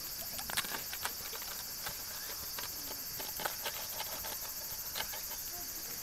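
A wheel pizza cutter rolls through a thin, crisp pizza on a wooden cutting board, with scattered light clicks and knocks as the blade crunches the crust and taps the board.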